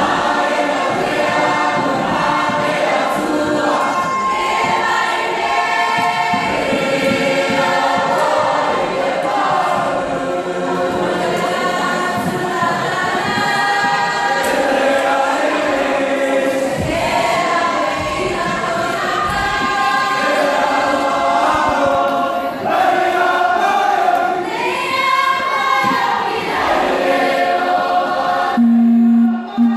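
A large group of performers singing together as a choir in several voice parts, loud and continuous. Near the end the singing stops and a single steady low tone sounds.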